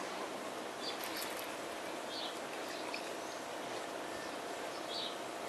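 Short, high bird chirps every second or so over steady outdoor background noise.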